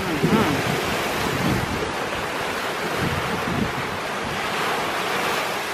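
Sea surf: small waves breaking and washing up onto the shore in a steady rush, with wind buffeting the microphone.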